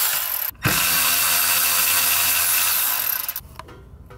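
Cordless electric ratchet running, spinning out the bolts of a rear differential cover. It runs in a steady burst, breaks off briefly about half a second in, runs again and stops about three seconds in.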